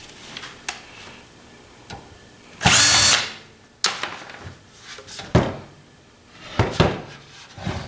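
Cordless drill-driver whirring once for about half a second, backing a screw out of a satellite receiver's case. Several sharp clicks and knocks of the receiver being handled follow.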